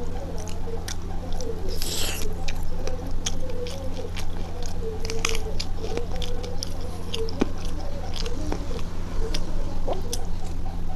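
Close-miked wet chewing and mouth smacking, a rapid scatter of sticky clicks, as rice and curry are eaten by hand, with fingers squishing the rice and curry together on a steel plate.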